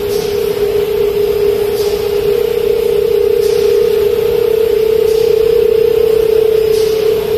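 Candy production line machinery giving a steady, loud hum that holds one pitch, with a faint hiss that swells briefly about every second and a half.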